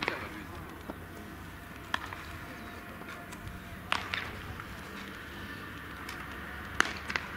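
Steady open-air background noise broken by sharp, short cracks or knocks: one at the start, one about two seconds in, one about four seconds in, and two close together near the end.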